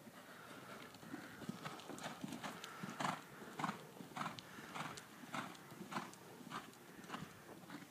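Grey horse cantering on a sand arena surface: soft, regular hoofbeats, one per stride, a little under two a second. They become clearer after about two seconds.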